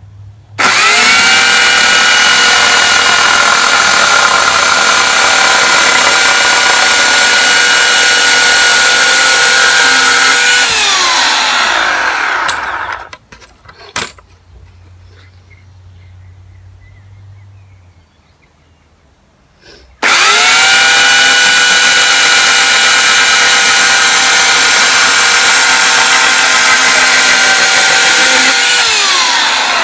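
Titan chainsaw cutting a wooden board in two runs of about twelve and nine seconds. Each run starts abruptly at a steady high whine, and near its end the pitch sags and the saw winds down. A single knock falls in the quiet gap between the runs.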